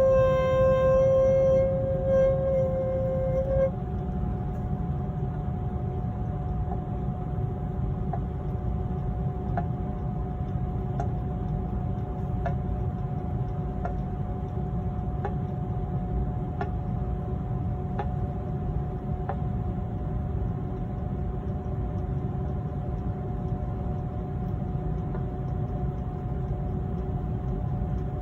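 Household humidifier vibrating with a loud horn-like droning tone for the first few seconds. It then settles into a steadier, quieter hum over a low rumble, with faint regular ticks about every second and a half through the middle.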